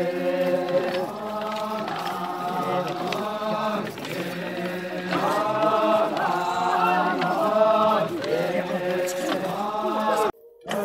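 A group of dancers chanting a folk song together in repeated, rising-and-falling phrases; the chant breaks off suddenly near the end.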